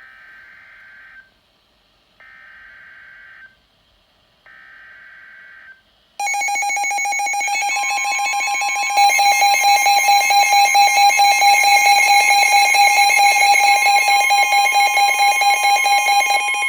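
Emergency Alert System broadcast tones: three short bursts of warbling digital data-header screech about a second apart, then from about six seconds a loud, continuous harsh two-tone attention alarm that grows louder at about nine seconds.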